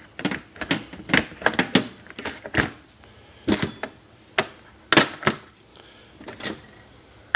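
Steel tools and metal tool-box drawers being handled: a string of sharp clanks and clicks, one about three and a half seconds in followed by a brief metallic ring.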